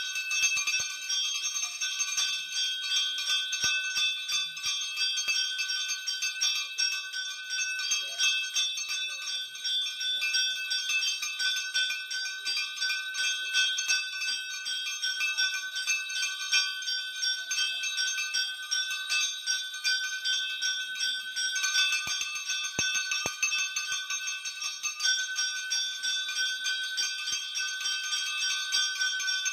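Temple bell rung rapidly and without pause during an aarti, a dense, steady ringing.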